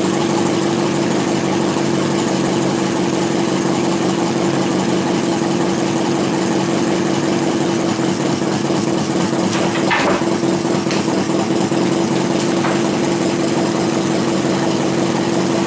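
Alcohol-fired model four-cylinder vacuum engine (flame-licker) running steadily at an even speed, a continuous mechanical running sound with a steady hum.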